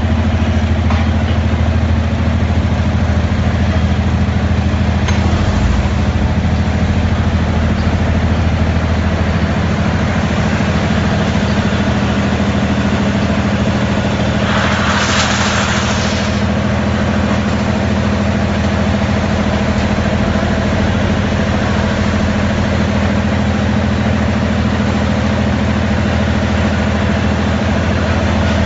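Steady, loud drone of a steel rebar hot-rolling mill's machinery at the cooling bed and roller table, a low hum of several steady tones under a noisy wash. About halfway through, a hissing rush swells for about two seconds and dies away.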